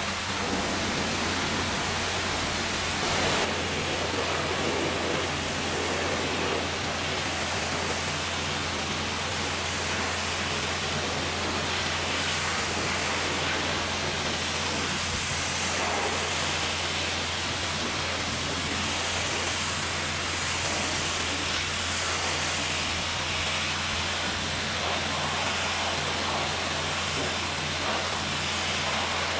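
Pressure washer blasting a high-pressure water jet against a truck's wheel and then its cab front and grille. It makes a steady hiss of spray over a steady low hum.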